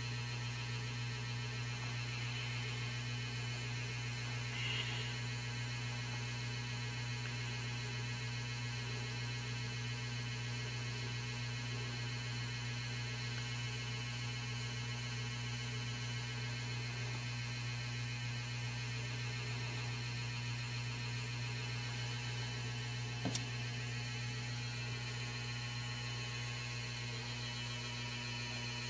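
Steady low electrical mains hum, with a single brief click late on.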